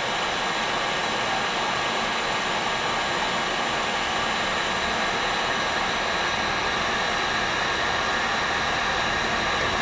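Electric heat gun running steadily: an even blowing hiss with a faint steady whine, preheating a hay rake's hardened steel tine before welding.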